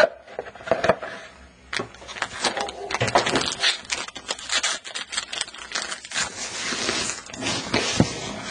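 Hands handling a trading-card pack close to the microphone: scratchy rustling and scraping of the wrapper and cards with many small clicks, and a sharp click at the start and another near the end.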